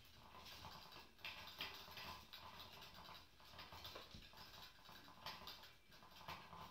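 Faint scratching and a few soft taps from kittens' paws moving on the floor and pawing at a plastic toy, in a small quiet room.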